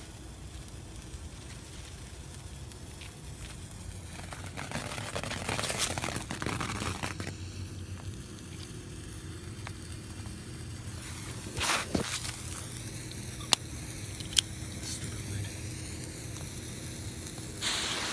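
Sparkler being lit with an electric arc lighter: crackling and hissing that swells twice, two sharp clicks midway, and a louder hiss starting near the end.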